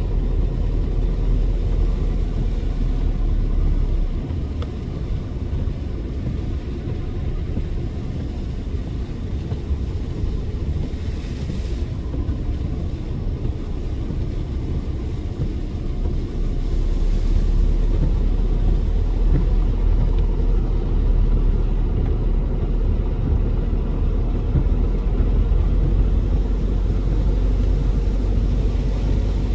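A car driving, with a steady low rumble of engine and road noise that grows a little louder about two-thirds of the way in.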